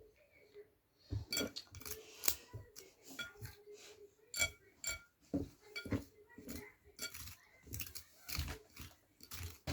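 Irregular clinks and knocks of hard objects against a dish, several with a short ringing tone, about one or two a second.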